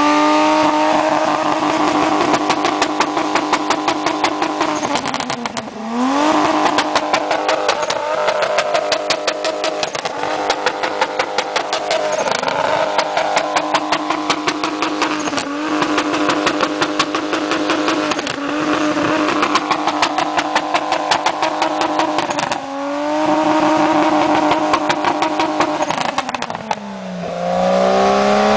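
Turbocharged BMW E30 engine held at high revs with a fast, regular stutter in its note. Several times the revs drop briefly and climb straight back up, and near the end they fall away and rise again.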